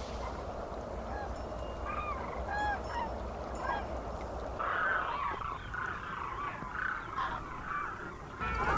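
A flock of large birds giving goose-like honking calls: scattered single calls at first, then many overlapping in a dense chorus from about halfway in.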